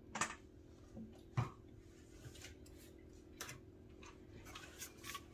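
A few faint, sharp clicks and light knocks, scattered irregularly, over a faint steady hum.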